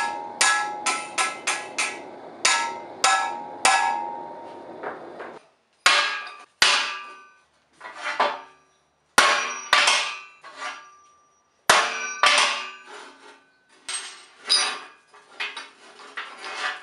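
Hammer blows on a red-hot railroad spike over a steel block, about eight quick strikes with a ringing tone. About five seconds in, this gives way to forged railroad-spike hooks clinking and knocking against one another as they are handled in a pile.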